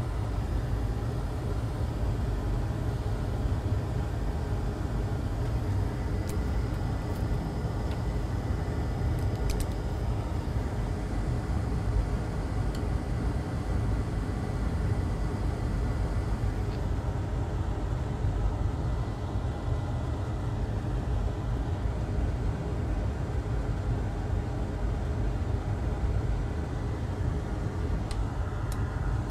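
Hot air rework station blowing steadily on a logic board to melt the solder under a small chip: a continuous airy rush with a deep low rumble and a faint thin whine.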